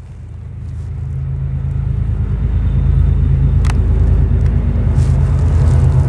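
Diesel-electric freight locomotives working upgrade at the head of a double-stack train, a deep steady engine drone. It grows louder over the first few seconds as they approach, then holds.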